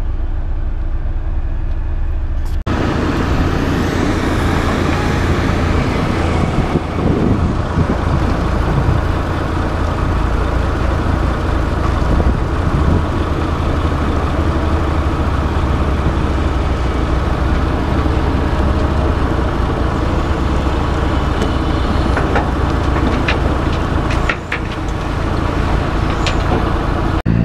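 Heavy diesel engine running steadily, then, after a cut about three seconds in, louder and rougher heavy-machinery engine noise with a low rumble and a few sharp knocks near the end.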